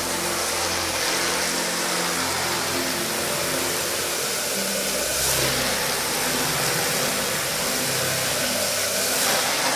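Water spraying hard from a hand-held cleaning wand onto a soaked rug: a steady hiss of spray over the even running of the machine driving it.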